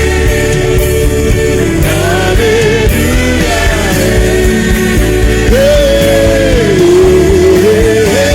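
Gospel song: a solo voice sings a long melodic line with slides between notes over a full band with drums and a steady beat.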